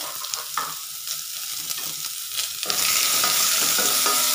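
Onion, yellow cucumber and tempering spices sizzling in hot oil in a stainless steel pot, stirred with a spatula. The sizzle gets clearly louder about two and a half seconds in.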